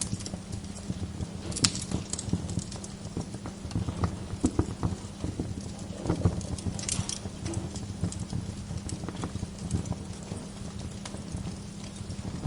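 Wood fire crackling, with irregular snaps and pops over a steady low rumble. A few sharper pops stand out about a second and a half in and about six seconds in.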